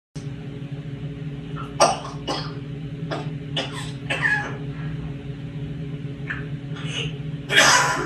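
African grey parrot making a run of short, mimicked cough sounds, about eight in all, the loudest and longest near the end. A steady low hum runs underneath.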